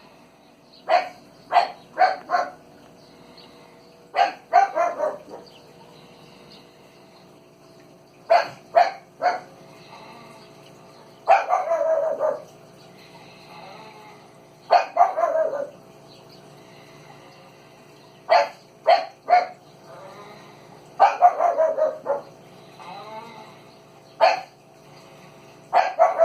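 An animal's short barking calls in groups of two to four, repeated every few seconds, some sliding down in pitch, over a faint steady hum.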